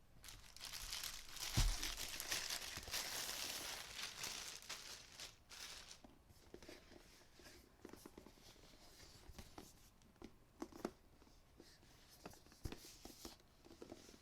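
Product packaging being torn and crinkled open, with a dull thump about a second and a half in. This is followed by quieter handling with scattered light clicks and taps.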